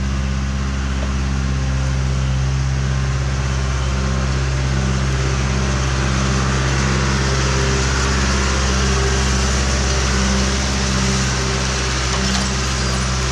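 John Deere 310C backhoe's diesel engine running steadily at a constant speed.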